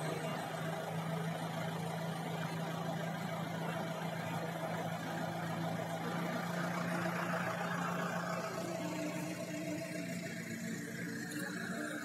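Engine of heavy machinery running steadily at a constant speed: a low, even hum that stops shortly before the end.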